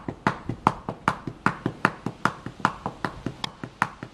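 Rapid, rhythmic sharp knocks, about three or four a second, with stronger and weaker strokes alternating.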